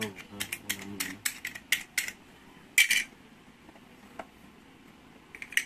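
Quick sharp plastic clicks and snaps from a toy kitchen's microwave and cupboard doors being worked by hand, the door stiff and not opening. A fast cluster of clicks comes in the first two seconds, a louder one near three seconds, and a few more near the end.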